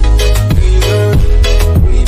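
Electronic remix music without vocals: a heavy bass line and a steady beat with a drum hit about every half second under pitched synth notes.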